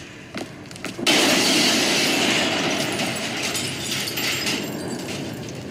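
A large explosion about a second in: a sudden loud blast, then a long rushing of flames from a burning fireball that slowly dies down. A few faint ticks come before it.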